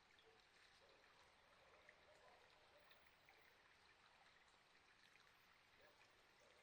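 Near silence: a faint, steady hiss of flowing water.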